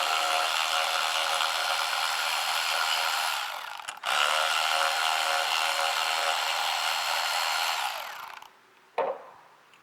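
Power drill-driver running steadily in two spells of about four seconds each, with a short break between them, backing out the small fasteners that hold the MT82 shifter plate. A single short knock follows near the end.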